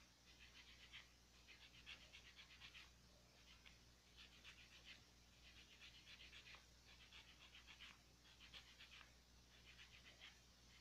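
Faint, quick scratchy strokes of a sponge buffer block rubbed back and forth over acrylic nails. They come in short runs of rapid strokes with brief pauses between.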